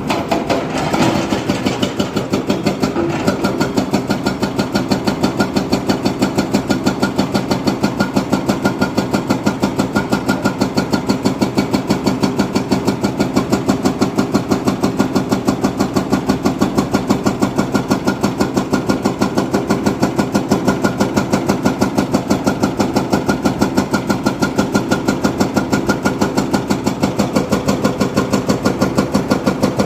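Diesel engine of a heavy construction machine running steadily with an even, rapid pulsing beat, with some clattering in the first few seconds.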